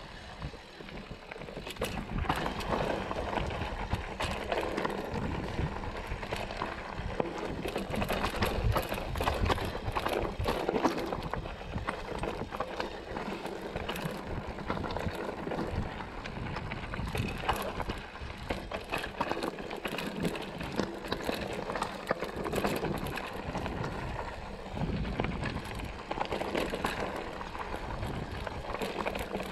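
Mountain bike rolling down a rocky singletrack trail: tyres crunching over loose stones and the bike rattling with many small knocks.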